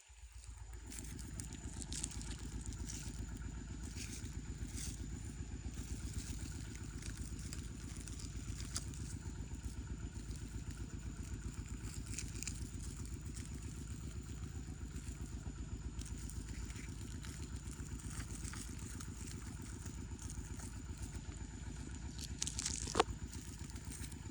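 A small engine running steadily at an even speed, with a few faint clicks and a sharper knock near the end.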